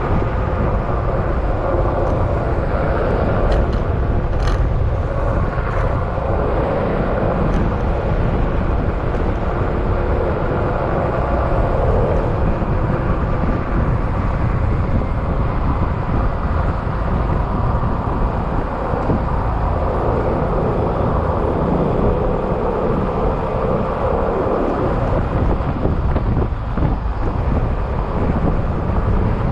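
Yamaha XMAX maxi-scooter's single-cylinder engine running steadily at riding speed, mixed with rushing wind and road noise.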